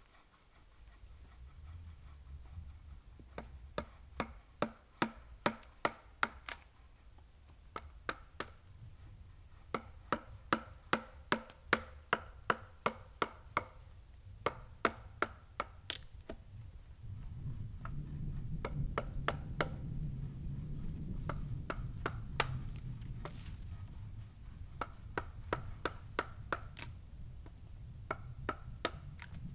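Hand tool chopping into wood: runs of quick blows, about two or three a second with short pauses between runs, each with a brief ring.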